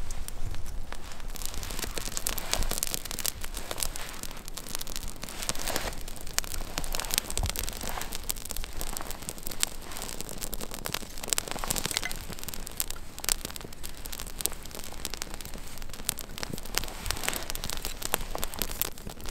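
A newly lit small wood fire of split kindling and wood shavings crackling, with a dense, irregular run of sharp snaps.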